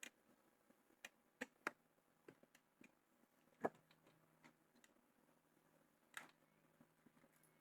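Scattered light clicks and taps of small objects being handled, a few sharp ones with the loudest about three and a half seconds in, over quiet room tone.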